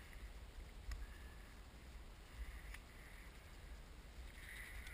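Faint low rumble of wind buffeting the camera's microphone, with two light ticks.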